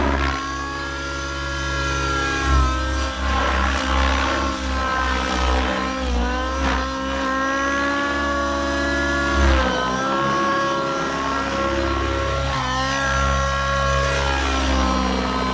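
XLPower Specter 700 Nitro RC helicopter in flight: its nitro glow engine and rotors whine steadily. The pitch dips and recovers several times as the helicopter manoeuvres.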